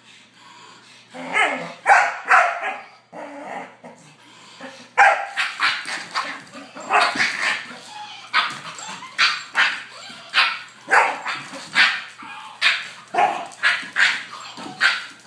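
Dogs barking in play: short, sharp barks, a few at first, then coming quickly, about two a second, from about a third of the way in.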